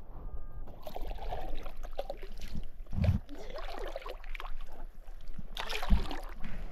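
Canoe paddle strokes close by: a wooden paddle dipping and pulling through lake water, splashing and swirling, with a dull low thump about three seconds in and again near the end.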